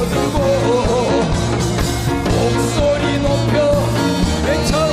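A male singer belting a reworded Korean folk song over a live rock band, with electric bass under a steady beat.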